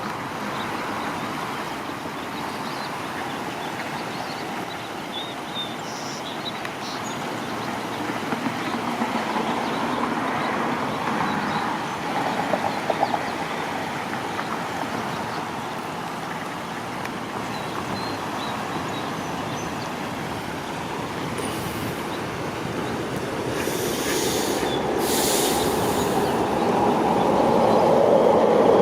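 A train running, its noise getting louder over the last several seconds as it draws closer.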